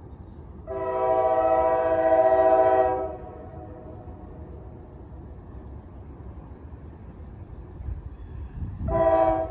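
A diesel locomotive's multi-chime air horn sounds from a train that is still out of sight. One long blast of about two seconds starts about a second in, and a second blast begins near the end.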